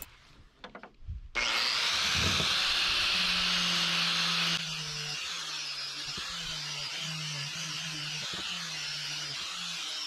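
Electric angle grinder with a wire cup brush starts up about a second in and runs steadily, scrubbing rust off a Suzuki K90 motorcycle exhaust pipe. It is louder at first and steps down somewhat about halfway through.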